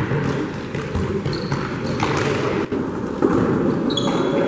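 Futsal ball being kicked and bouncing on a sports-hall court, the knocks echoing, with a few short high squeaks of trainers on the floor.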